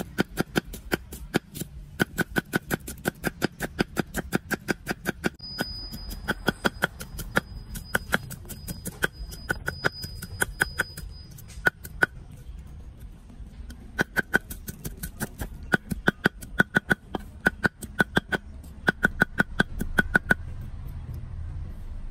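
Kitchen knife chopping red onion on a thick round wooden chopping block: rapid knocks of the blade on the wood, about six a second, in runs with short pauses between.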